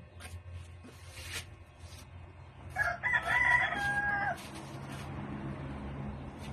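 A rooster crowing once, about three seconds in, ending on a long held note. Short scrapes of a trowel working cement mortar come before it.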